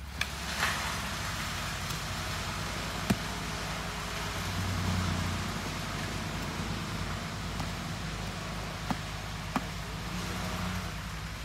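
Pickaxe striking soil and roots at the base of a tree: a few sharp, widely spaced knocks over a steady low hum and hiss, with the hum swelling about halfway through.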